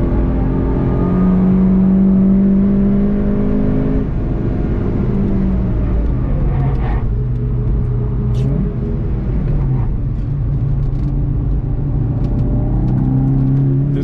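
Onboard engine sound of a VW Golf 7 GTI TCR: the engine runs steadily at high revs for about four seconds, then drops in pitch as the car brakes hard from about 140 to 40 km/h. Its pitch jumps up briefly near the middle as it changes down.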